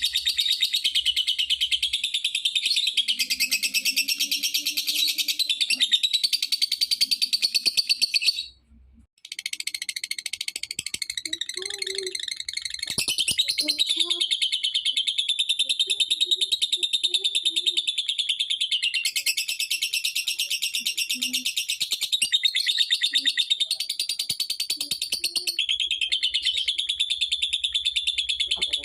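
Lovebird singing a long, fast chattering trill: a continuous stream of rapid high chirps, broken by a short pause about eight seconds in.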